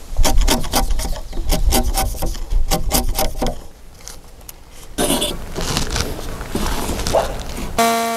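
Chisel cutting into a timber beam's notch joint: a quick run of sharp, woody knocks, about four or five a second, for the first three seconds or so. After a short lull comes a few seconds of rough scraping on the wood, and near the end a held musical chord starts.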